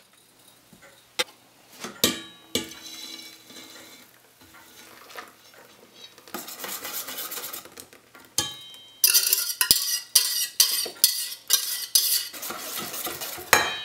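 Metal whisk and stainless saucepan clinking and scraping against a stainless steel mixing bowl as lemon curd mixture is poured in, with a few sharp clinks early and fast, busy whisking and scraping in the second half.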